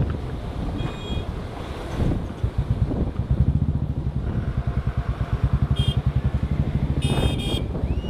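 Motorcycle engine running with a steady, rapid, even beat, starting about two and a half seconds in and dropping away near the end, over wind rumble on the microphone. A few short, high beeps sound around it.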